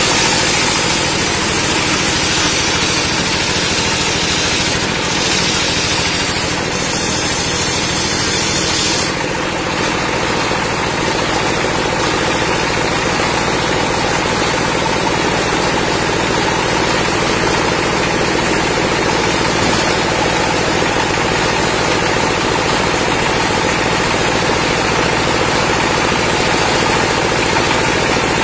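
Engine-driven table circular saw ripping a log. The blade cuts through the wood with a loud high hiss for about the first nine seconds, then the cut ends and the saw keeps running steadily without load.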